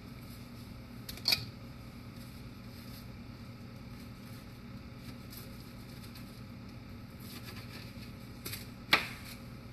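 Knife cutting open a crisp fried lumpia on a cutting board: two short sharp cracks, about a second in and near the end, over a steady low hum.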